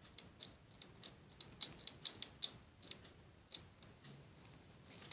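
Sharp clicks of a small plastic Kinder Surprise toy figure being worked and turned in the fingers: an irregular run of about three clicks a second that stops about four seconds in.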